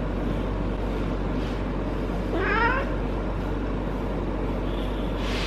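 Female cat in heat caterwauling: one short, wavering yowl about halfway through, rising then falling in pitch, over a steady low hum.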